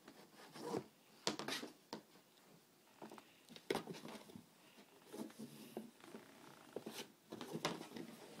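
Faint, irregular scratching and rustling of a cat scrabbling about inside a small cardboard box, with the box shifting and scraping on the carpet.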